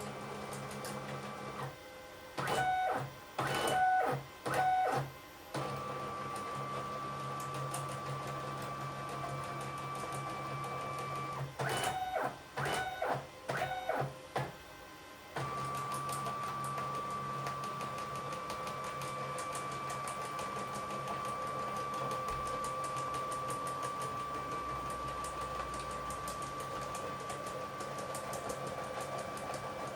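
Stepper motors of a home-built CNC milling machine moving its X and Z axes, a steady electric whine. Twice, about three and twelve seconds in, it breaks into several short, higher-pitched moves.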